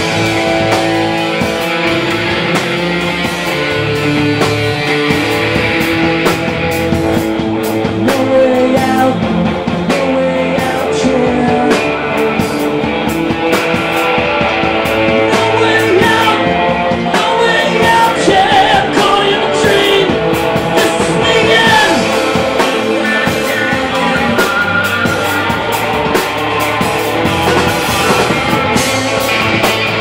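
Live band playing loud: electric guitars, bass guitar and a drum kit with steady cymbal hits, with no break in the music.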